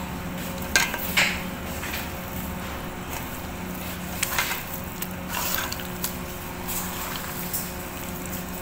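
Potato egg salad being stirred in a stainless steel bowl: soft wet scraping and squishing, with a few clinks of the utensil against the metal bowl, about a second in and again around four and five seconds in. A steady low hum runs underneath.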